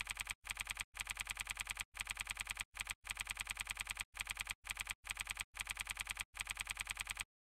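Typing sound effect: rapid, even key clicks, about ten a second, in short runs with brief gaps between them, stopping abruptly about seven seconds in. It is the added sound of a typewriter-style text animation.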